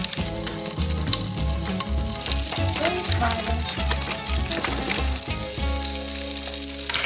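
Pop Rocks candy popping in water: a dense, fast crackle of tiny pops, over background music.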